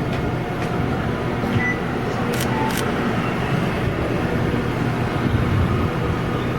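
An intercity bus's engine running steadily with a low hum. Two light clicks come about two and a half seconds in.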